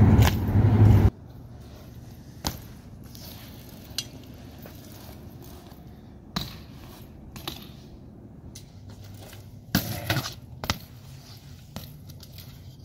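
A BMX bike being ridden and landed on concrete: scattered sharp clacks and knocks of the tyres and frame hitting the ground and the parts rattling, the loudest cluster about ten seconds in. The first second holds a loud steady rush that cuts off abruptly.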